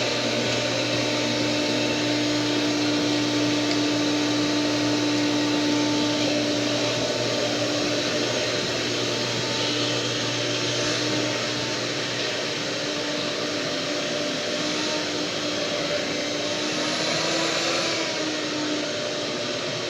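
A vacuum cleaner running steadily: a motor whine over even rushing air, with a slight change in pitch near the end.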